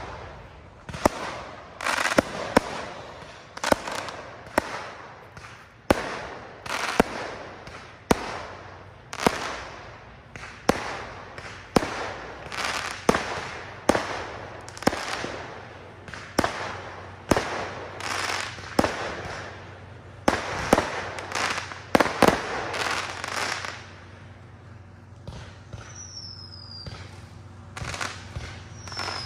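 Aerial fireworks going off in quick succession: sharp bangs, about one to two a second, each trailed by a crackling fizz. They stop about four-fifths of the way through. Near the end a short falling whistle sounds twice.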